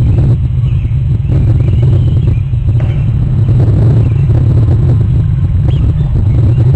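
Loud, steady low rumble picked up by an outdoor wildlife camera's microphone, with a few faint, short bird calls above it now and then.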